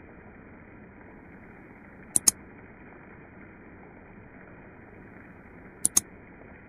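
Steady hiss of a recording's background noise during a pause in speech. A sharp double click comes about two seconds in and another near the end.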